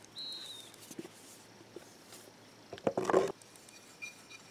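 Camp dishes being handled: a short clatter and rustle about three seconds in as a plate is put away and a small frying pan taken up to be wiped. Near the start there is a brief high chirp.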